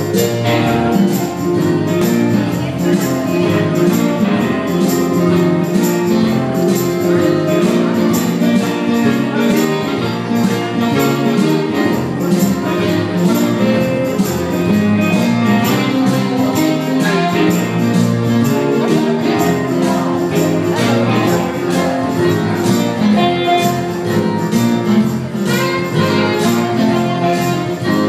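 Small live band playing dance music with a steady beat: saxophone, electric guitar and keyboard.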